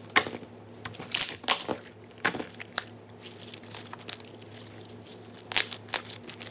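Slime being squeezed and worked by hand, giving irregular sharp clicking pops and crackles, with the loudest pops just after the start and about five and a half seconds in.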